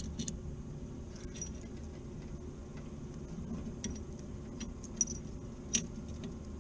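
Light metallic clicks and clinks of tools and parts being handled on a blower motor and pulley, with two sharper clinks about five and six seconds in, over a steady low hum.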